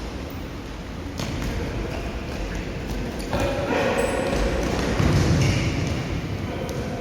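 Futsal play in an echoing indoor hall: ball kicks and bounces with shoe squeaks and players' shouts, growing louder about halfway through.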